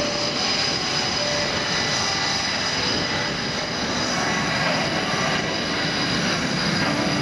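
Boeing F/A-18F Super Hornet's twin General Electric F414 turbofans running at low power as the jet taxis: a steady, loud jet noise with a constant high whine.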